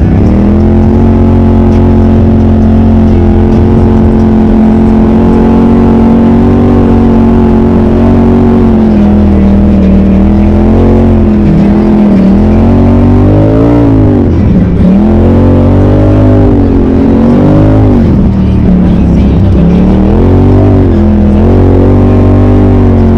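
Side-by-side UTV engine running under load: steady for about ten seconds, then its pitch drops and climbs again several times as the throttle is let off and reapplied.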